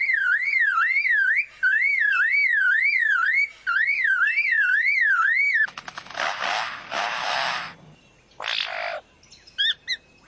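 Lyrebird mimicking a car alarm: a warbling tone that swings up and down about three times a second, in runs broken by short gaps. About five and a half seconds in it switches to a quick series of clicks and harsh noisy bursts, with a few short chirps near the end.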